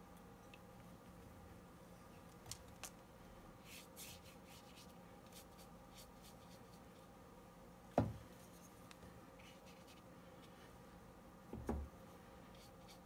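Faint scratchy strokes of a watercolour brush on wet cellulose watercolour paper, over a low steady hum, with one sharp click about eight seconds in and a softer knock near the end.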